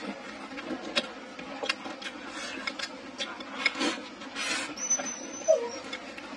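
Close-miked eating sounds: wet chewing and lip smacks in irregular clicks. About four seconds in comes a longer scraping slurp as rice is pushed from the bowl's rim into the mouth with chopsticks.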